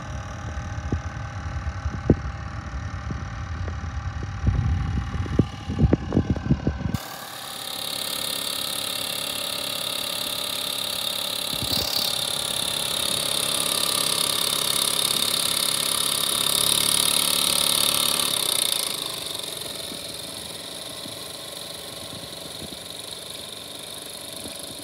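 Mamod live-steam model traction engines running on the spot: the steady mechanical clatter of their small oscillating-cylinder steam engines with hissing steam, the hiss swelling about seven seconds in and easing off after about nineteen seconds. A low buffeting rumble sits under the first seven seconds and then stops suddenly.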